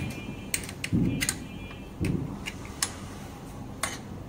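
Small metal hex key clicking against a screw and the metal bracket under an e-bike battery's controller, as the screw is loosened to close the gap between controller and battery. Scattered sharp clicks come at uneven intervals, with two dull knocks about one and two seconds in.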